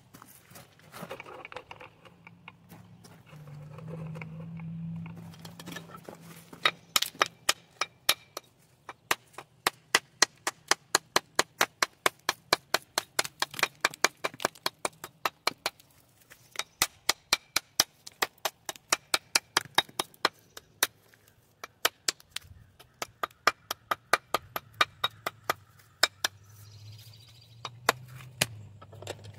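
Rapid hammering: sharp blows at about three a second, in runs of several seconds with short pauses.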